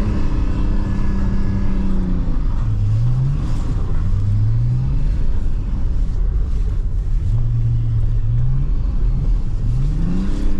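BMW E39's diesel engine heard from inside the cabin, revving hard and dropping back again and again while the car is drifted on a snowy road. The revs are held high at the start, fall away after about two seconds, rise in short bursts through the middle, and climb again near the end, over a steady rumble of tyres and road.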